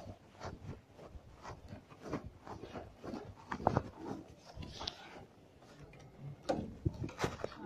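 Handling noise from a handheld phone being carried and swung about: irregular light knocks, clicks and rustles, a few a second.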